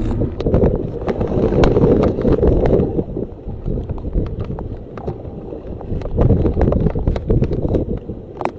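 Hurricane-force wind buffeting the microphone in heavy gusts over the rush of storm-surge water, with many sharp clicks and knocks scattered through. The gusts are strongest at the start, ease off in the middle, and rise again about six seconds in.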